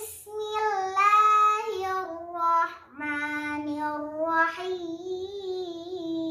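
A young girl chanting Quranic recitation in long, drawn-out melodic notes, the pitch sliding and wavering on held vowels, in two long phrases with a brief break about three seconds in.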